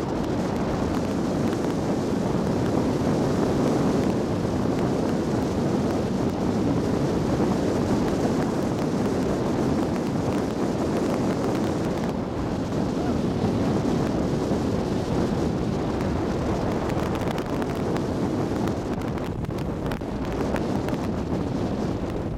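Steady wind buffeting the microphone over the low rumble of a moving tour boat.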